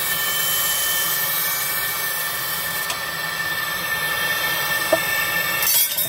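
Laser engraving and cutting machine running on a sterling silver belt buckle: a steady, loud noise with a high whine in it. Near the end come a few sharp knocks, as a hand reaches in toward the fixture.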